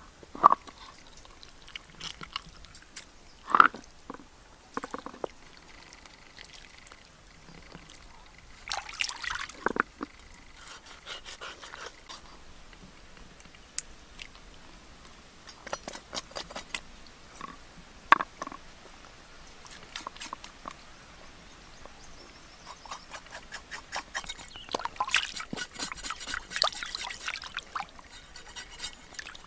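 A knife scraping and cutting a fish on a wooden cutting board, with scattered sharp knocks and short bursts of water splashing and trickling as the fish is rinsed, the longest splashing near the end.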